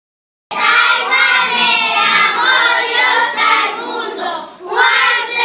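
A group of children singing together. It cuts in abruptly about half a second in, after silence.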